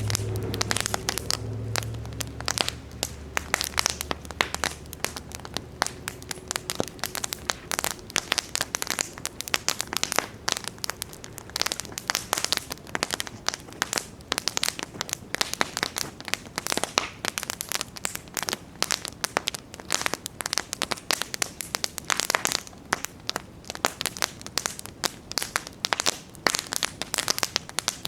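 Wood campfire crackling, with a dense, irregular run of sharp pops and snaps. A low hum fades out over the first few seconds.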